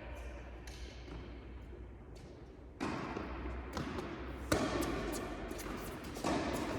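Tennis balls bouncing on an indoor court and being struck by rackets: scattered sharp pops and thuds, one louder strike about halfway through and a quicker run of bounces near the end, ringing in a large hall.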